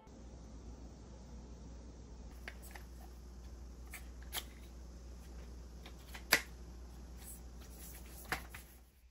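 Handling clicks from a long-handled plastic broom being fitted together and used, a few sharp clicks with the loudest about six seconds in, over a light rustle and a steady low hum.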